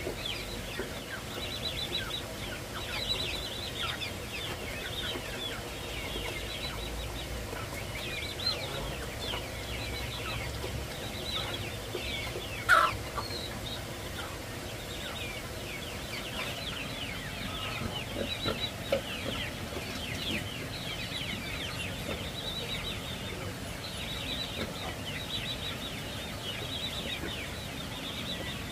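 Young chicks peeping continuously, a dense run of short, high, falling chirps, with one brief sharp louder sound near the middle.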